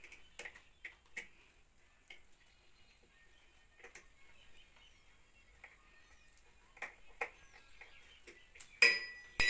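Small scattered clicks and ticks of a hand tool tightening the little nut that holds a bicycle bell on a child's tricycle handlebar. Near the end the newly fitted bell is rung, two loud rings.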